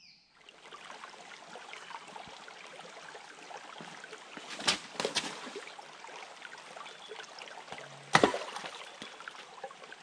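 Shallow creek trickling over and between rocks. Twice about halfway through, and loudest about eight seconds in, footsteps knock sharply on the rocks, the last with a low thump.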